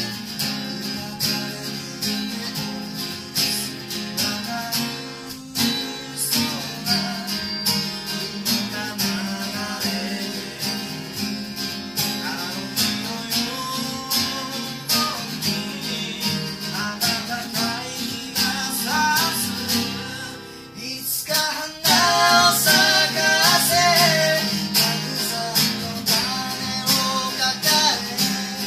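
Two acoustic guitars strummed and picked together, playing a song. About three quarters of the way in there is a brief lull, after which the music comes back louder with a man's singing voice over the guitars.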